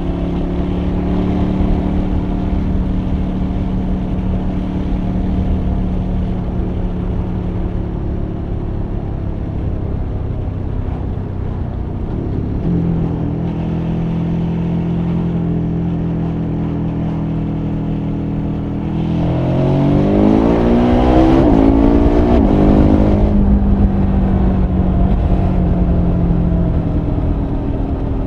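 KTM 1290 Super Adventure R's 1301 cc V-twin running under steady throttle at road speed. About nineteen seconds in it pulls hard, the revs climbing in two steps and the engine getting louder. It then settles back to a steady cruise.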